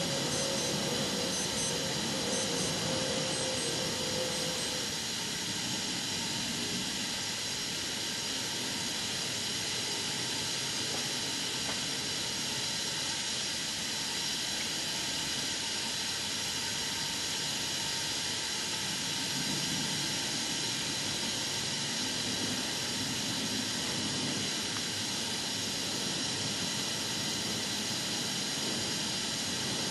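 Steam hissing steadily from a standing steam locomotive in steam.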